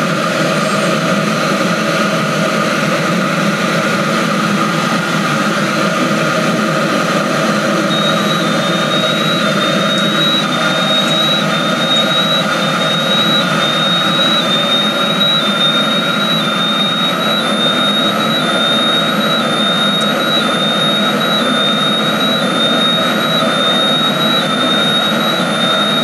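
Diesel air heater, a 4 kW body sold as 8 kW, running steadily at full fan speed on an oversized 65 ml fuel pump, burning rich enough to push carbon monoxide off the scale. About a third of the way in, a gas detector's sulfur dioxide alarm starts a rapid, high, repeating beep.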